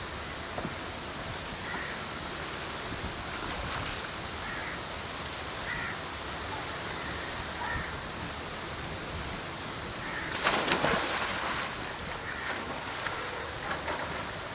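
Pool water sloshing as swimmers paddle through it, with a louder splash about ten seconds in.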